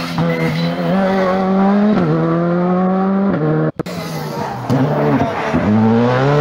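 Rally car engine held at high revs, with brief dips in pitch. After a sudden cut about four seconds in, a rally car's engine revs up and down as it spins around cones on tarmac, with tyre squeal.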